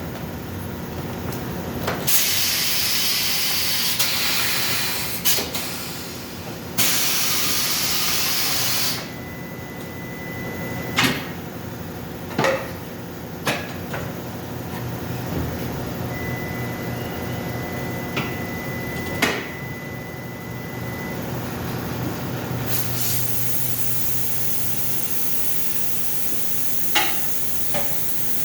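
Two long blasts of hissing compressed air, each starting and stopping abruptly, followed by scattered sharp metallic knocks as the bent wheel rim is worked on.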